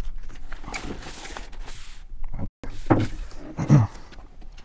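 Packaging being handled as a rack-mount network gateway is unwrapped: plastic wrapping rustles, then there are two louder short scraping, sliding sounds about three seconds in, as the metal unit comes out.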